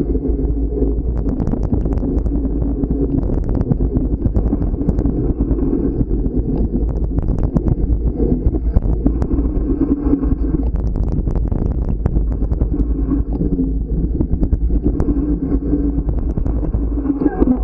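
Riding noise from a Trek Farley 9.6 fat bike on a rough dirt trail: a steady low rumble of wind on the microphone and tyres on dirt, with frequent sharp rattling clicks as the bike takes bumps.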